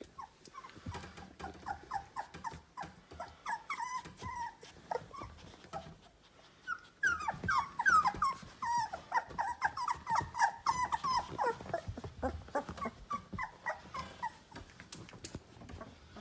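Seventeen-day-old Labrador Retriever puppies squeaking and whimpering in many short, high calls that slide downward in pitch. The calls come thickest and loudest about halfway through, after a brief lull, and thin out near the end.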